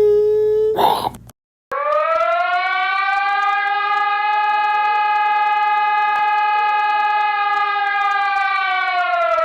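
A human voice imitating an emergency alert siren tone. A short held note is followed by a brief break, then one long steady note of about seven and a half seconds that slides up as it starts and sags down as it ends.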